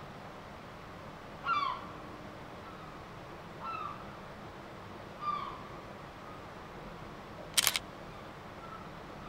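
Seagulls calling overhead: short, downward-sliding cries a second or two apart. About three-quarters of the way through comes a sharp double click of a camera shutter, the loudest sound.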